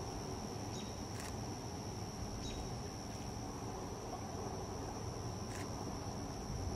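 Insects trilling steadily in one high, even tone, with a few short, sharp high chirps over it and a low rumble beneath.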